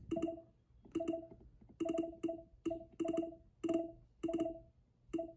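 Nintendo Alarmo alarm clock playing short plucked-sounding menu blips, about ten in uneven succession, as its snooze-button dial is turned to scroll through the wake-up records. Each blip marks one step of the dial.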